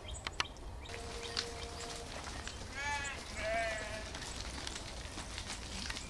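Sheep bleating twice in quick succession around the middle, each a short quavering call. A few light clicks come at the start.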